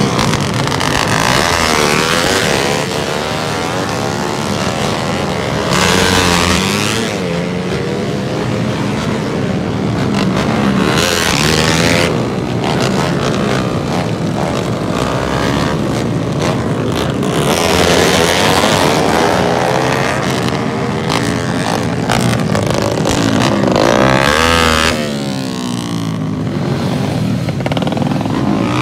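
A pack of small motorcycles and scooters, several with aftermarket exhausts, revving and passing close by. Many engine notes rise and fall over one another again and again.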